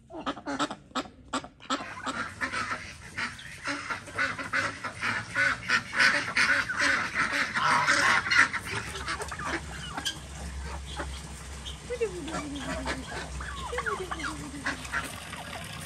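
A flock of domestic geese and ducks honking and quacking, a dense crowd of overlapping calls that is loudest in the first half and thins out after about ten seconds. Two falling calls stand out later on.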